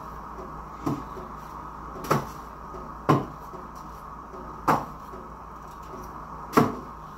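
Five thuds at uneven intervals as chunks of potato, cut by hand with a knife, drop into a steel pot of chicken-foot soup, over a steady background hum.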